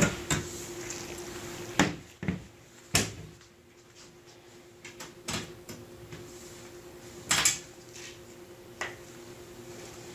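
Scattered sharp knocks and clicks of tools and metal parts being handled while the hinge screws are taken out of a metal oven door, about seven in all, the loudest a double knock near the end, over a faint steady hum.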